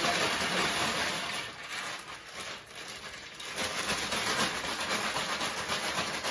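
Ice cubes and ice cream rock salt rattling inside a zip-top plastic bag shaken by hand, a smaller bag of ice cream mix inside it, to freeze the mix into ice cream. The shaking eases from about a second and a half in for a couple of seconds, then picks up again.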